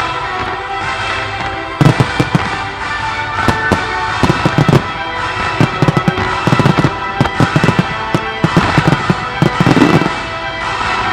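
Display fireworks going off in a rapid volley: a dense string of sharp bangs from aerial shells bursting, starting about two seconds in and continuing nearly to the end, with music playing underneath.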